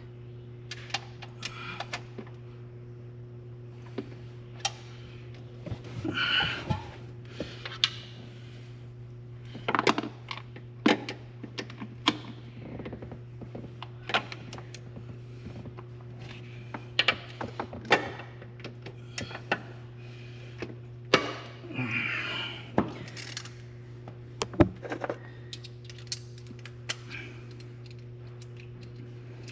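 Socket wrench ratcheting in short runs, with scattered clicks and clinks of tools on metal, as intake manifold bolts are tightened. A steady low hum runs underneath.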